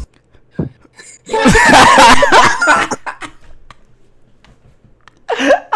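An uncontrollable fit of laughter: a loud, high-pitched burst starting about a second in and lasting about two seconds, then dying away, with laughter breaking out again near the end.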